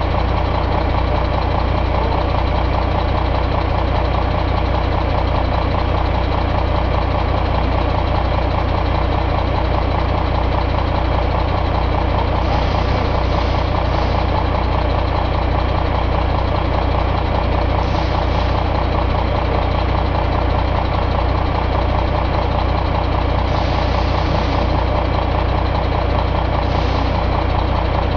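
Caterpillar C13 inline-six diesel engine running steadily at one speed.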